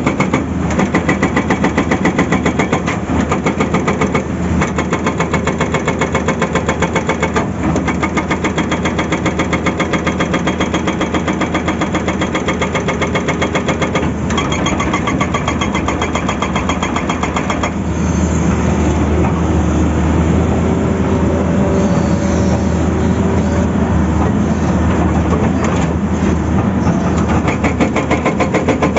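Hydraulic rock breaker on a Tata Hitachi excavator hammering into rock in a rapid, steady rhythm over the running engine. The hammering breaks off briefly twice, and past the middle it turns smoother and less distinct for several seconds before the sharp rhythm returns near the end.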